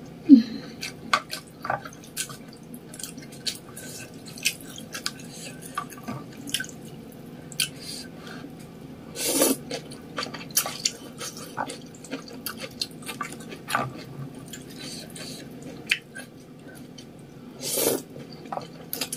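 Close-up wet mouth sounds of eating spicy ramen noodles: scattered sharp lip smacks and chewing clicks, with two longer noodle slurps, one about halfway through and one near the end.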